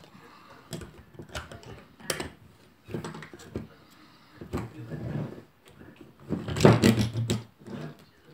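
Hard plastic clicking, knocking and scraping as 3D-printed frame pieces are pushed onto a 12 V 7 Ah battery and the battery is shifted on a wooden tabletop. The knocks come irregularly, with a louder run of them about two thirds of the way through.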